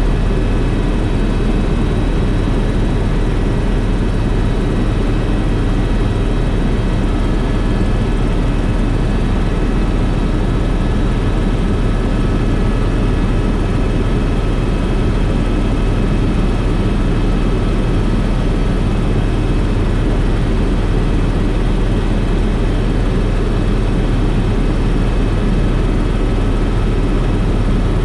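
Helicopter in flight: a steady, unbroken drone of engine and rotors, with a few faint steady whining tones over it.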